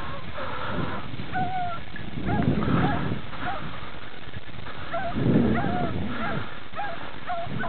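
A pack of beagles giving tongue in the distance while running a hare's scent: short, repeated yelping bays, with two louder bursts of low rumbling noise about two and a half and five and a half seconds in.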